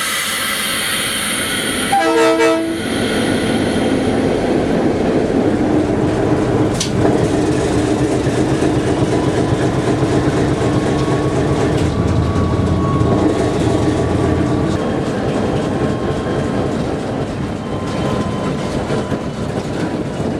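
A diesel locomotive's horn sounds one short blast about two seconds in. After it comes the steady running noise of the moving train: engine rumble and wheels on the rails, with a faint thin squeal partway through.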